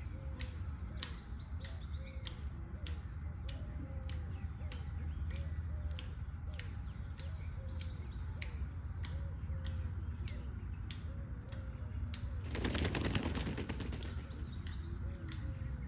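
Indian peacock's train-rattling display: a fast, dense rattle of vibrating tail feathers lasting about a second and a half, a few seconds before the end. Around it there are regular clicks about twice a second and three short runs of high chirps.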